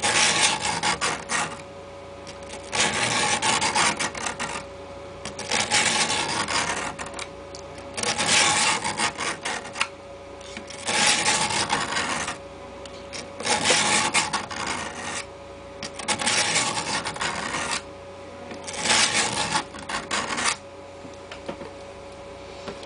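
Folding knife blade being sharpened on the coarse 200-micron face of a diamond sharpening stone: groups of quick grinding scrapes about every two and a half seconds, stopping near the end.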